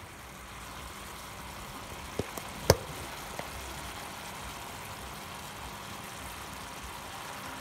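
Sliced carrots and onions sizzling and bubbling in oil and a little water in a frying pan: a steady sizzle, with a few short knocks between two and three and a half seconds in, the loudest near three seconds.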